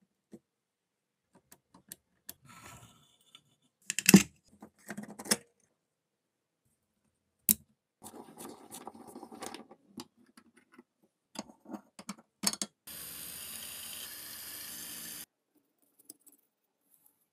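Metal parts of an antique crank pencil sharpener being handled and taken apart: scattered clicks, clinks and rattles, the loudest a sharp clack about four seconds in. Around eight seconds in the crank is turned with a rough scraping, and about thirteen seconds in a steady mechanical noise runs for some two seconds.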